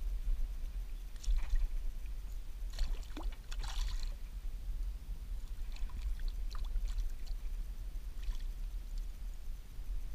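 Hooked chain pickerel splashing and thrashing at the water's surface beside a kayak: several short splashes, the biggest run of them between about three and four seconds in. A steady low rumble lies under them.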